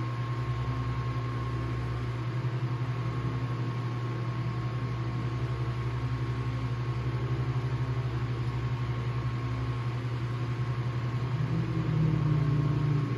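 1954 Emerson 79648-SA 16-inch table fan running steadily on medium speed: its capacitorless motor hums and the blades move air, with a light vibration from the cage. Near the end the hum swells louder for about a second.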